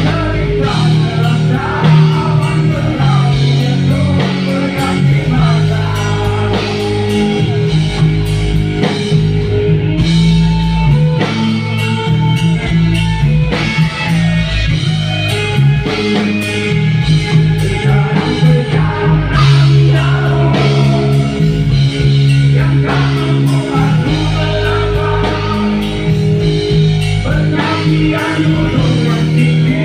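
Live rock band playing loud: distorted electric guitar, a drum kit and a singer, with no break in the music.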